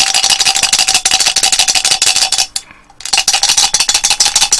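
Small chocolate balls rattling inside a ball-shaped container shaken hard and fast, with a brief stop a little over halfway through before the shaking resumes. The chocolates are stuck and won't come out, caught on the broken chocolate stick.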